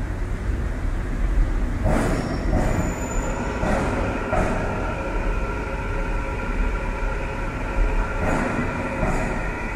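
MetrôRio subway train running through an underground station: a deep rumble, with a steady whine of several tones setting in about two seconds in, and a few knocks.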